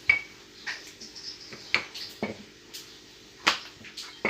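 Scattered light taps and clicks of hands and kitchen utensils on a work surface while dough is shaped, the loudest about three and a half seconds in, over a steady low hum.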